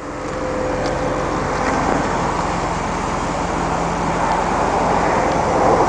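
Low, even idle of a 1987 Mercedes 300 SEL's six-cylinder engine, under a steady rushing noise that swells during the first second and then holds.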